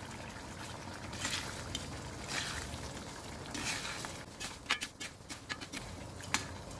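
A metal spatula stirs crystal salt into lemon pieces simmering in oil in an iron kadai. A steady sizzle runs under soft swishes of stirring, then a quick run of sharp clicks of metal on iron in the second half.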